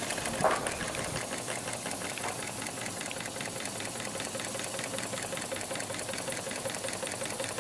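Miniature live steam engine running at a rapid, even beat, a steady mechanical knocking and chuffing. A brief louder sound stands out about half a second in.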